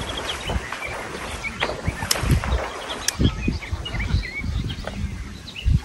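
Small birds chirping and twittering over a low, uneven rumble, with two sharp clicks about two and three seconds in.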